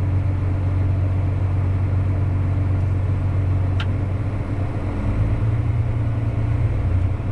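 Tractor engine running steadily under PTO load, driving a grain cart's unloading auger, heard from inside the cab; the low engine note shifts slightly about five seconds in. A single short click near the middle.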